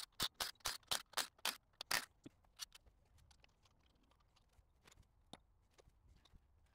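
Hand ratchet clicking as the main bearing cap bolts on a VW 1.9 ALH turbodiesel block are undone: a quick, even run of sharp clicks for about two seconds, then a few faint scattered clicks and taps.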